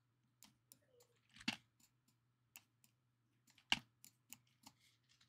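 Scattered faint clicks of a computer keyboard and mouse, with two louder clicks about a second and a half in and near four seconds, over a faint steady low hum.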